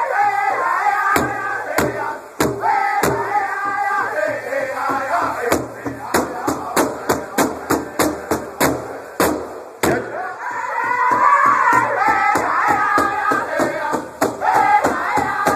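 Powwow drum group: several men striking a large hide-covered powwow drum in unison while singing a high-pitched song together. The drumbeats come much closer together partway through.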